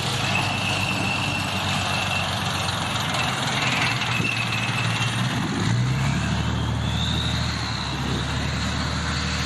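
M60 tank's air-cooled V12 diesel engine running as the tank drives on its tracks, with a high whine over the engine. About six seconds in, the engine note drops lower and the whine rises in pitch.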